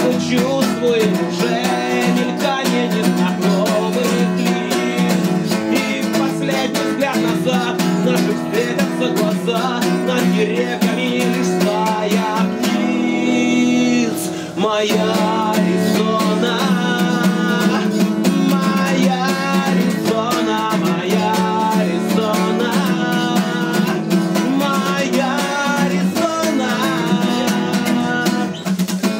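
Steel-string acoustic guitar strummed steadily, with a man singing along. About halfway through the strumming lets up briefly on a held chord, then resumes.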